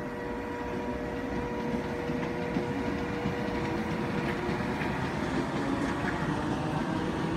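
Electric multiple unit running along the platform: a steady rumble of wheels on rails, with a thin steady whine that fades out about four seconds in.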